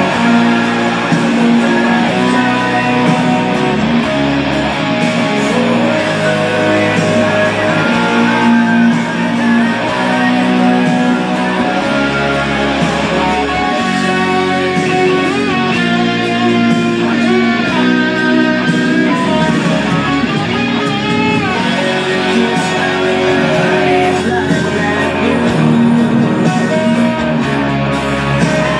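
Electric guitar played through a Marshall amplifier over full rock-ballad music with bass and singing; held, wavering notes stand out through the middle.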